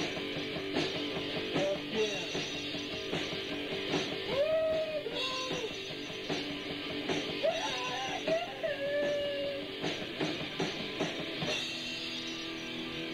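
Amateur rock band rehearsing, electric guitar to the fore, heard through an old home cassette recording. The playing stops right at the end.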